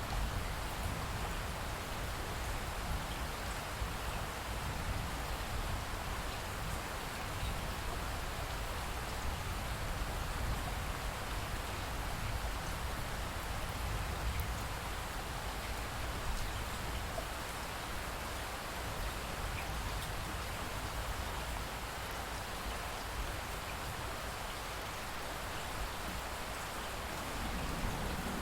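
Light steady rain with drips falling on surfaces. A low rumble of thunder starts to swell right at the end.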